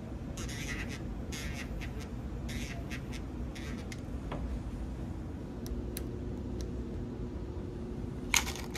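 Scratchy rustling and light clicks of brass cartridge cases being handled at a reloading bench, then one sharp click near the end as a case is set into the reloading press's shell holder.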